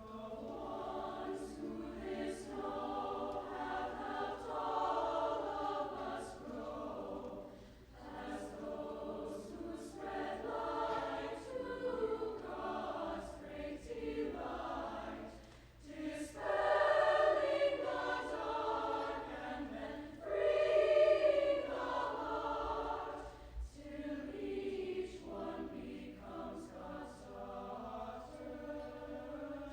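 High school choir singing, swelling louder in two phrases a little past the middle.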